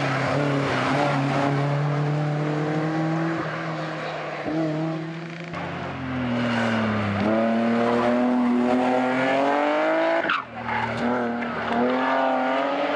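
Historic competition cars driven hard uphill one after another, engines revving and climbing in pitch through the gears. An open Seven-style roadster's engine comes first, then a second car's engine rises steadily; its note breaks off sharply about ten seconds in, then climbs again.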